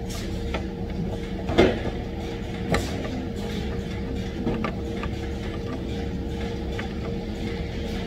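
Factory machine hum with a constant tone, over which rubber hoses being laid into a wooden jig knock and clack a few times, the loudest about a second and a half in.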